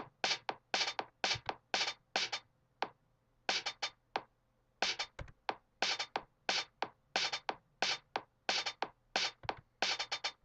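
Audiotool's Machiniste software drum machine playing back a programmed pattern of one-shot samples: a quick run of short, crisp hits, mostly pedal hi-hat and snare, several a second in uneven groups.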